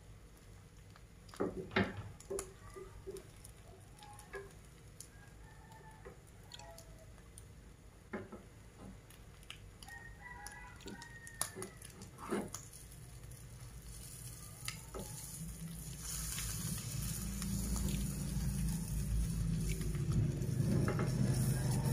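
Peanuts and egg frying in a pan with a faint sizzle, and a fork clicking against the pan a few times. Chickens cluck in the background. A low rumble with hiss swells up over the last six seconds.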